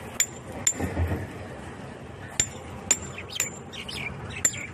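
Sharp metal-on-metal clinks, about six at irregular intervals, each with a brief high ring, from work on a steel reinforcement-bar mesh.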